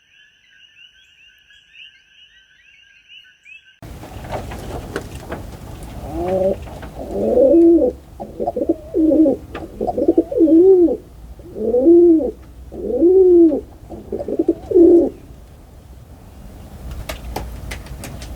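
Faint high twittering of small birds that cuts off abruptly about four seconds in, followed by a dove cooing: a long run of loud, low coos that rise and fall, then a few sharp ticks near the end.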